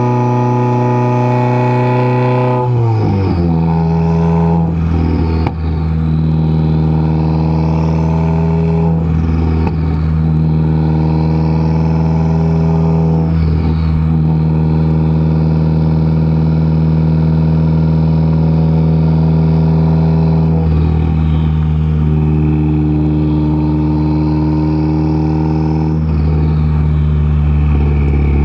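Exhaust of a 2015 Subaru WRX's turbocharged 2.0 flat-four, straight-piped through a catless J-pipe and single-wall axle-back, heard right at the tailpipe while driving. The note drops sharply about three seconds in, then holds a steady low drone with brief wavers every few seconds, and falls away again at the very end.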